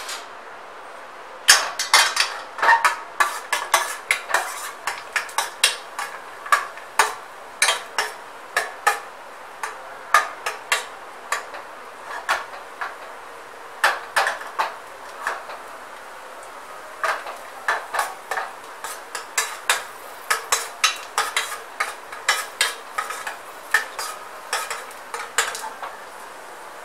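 A metal spoon scraping and clinking against a stainless steel kadai as cashews are stirred while they fry in ghee: quick, irregular strokes, starting about a second and a half in, with a couple of brief pauses midway.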